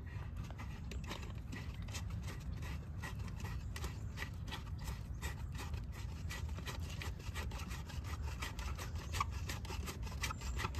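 Plastic Gizzmo skimmer guard being screwed by hand into the threaded bottom of a pool skimmer: a steady run of short rasping scrapes as the threads turn, over a low rumble.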